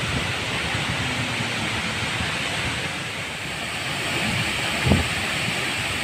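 Large waterfall pouring into its plunge pool: a steady rush of falling water, with one short low thump about five seconds in.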